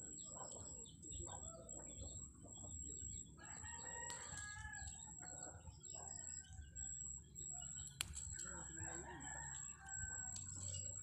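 Rooster crowing, once about four seconds in and again around eight seconds in, with chickens clucking between the crows.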